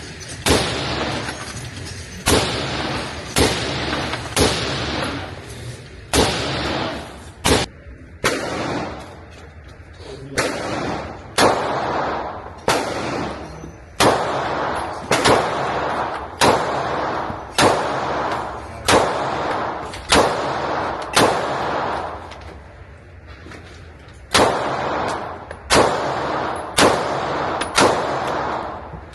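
Gunshots echoing in an indoor shooting range: about twenty shots, roughly one a second, with two short pauses.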